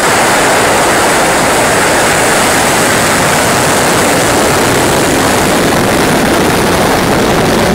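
Soyuz rocket's engines firing at liftoff: a loud, steady rushing noise.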